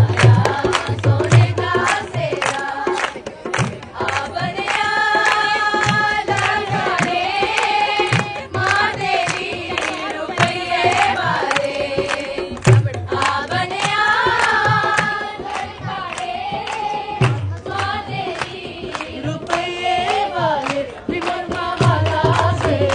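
A song playing: a singing voice over music, with a low drum beat that drops out in the middle and returns near the end.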